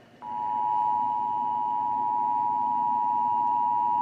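Emergency Alert System attention signal: two steady tones of close pitch sounding together as one harsh alarm. It starts a fraction of a second in and holds unbroken, announcing that an emergency alert is about to be broadcast.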